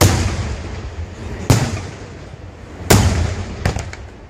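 Aerial firework shells bursting overhead: three loud bangs about a second and a half apart, each trailing a low rumble, then a couple of smaller cracks near the end.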